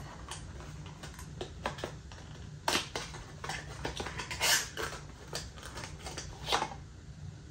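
Small cardboard candle box being handled and opened by hand: scattered rustles, scrapes and light taps of paperboard, with a few sharper clicks, the loudest about a third and two thirds of the way through.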